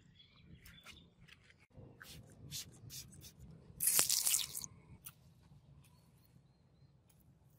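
Scattered small crackles and pops, then about four seconds in a short loud hiss as a liquid is poured onto the steel block and foams up in an acid-base reaction, fading to faint fizzing.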